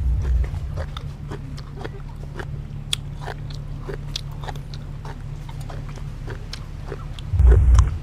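Close-up chewing of a mouthful of food, with many small wet mouth clicks and smacks. A dull low thump sounds near the end.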